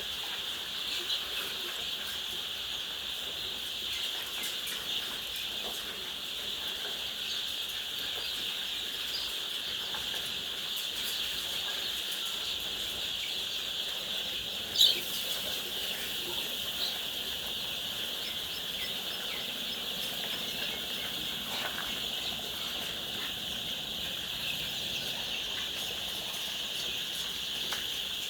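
A steady, dense chorus of chickens in a poultry house, many birds calling at once. A single sharp click stands out about halfway through.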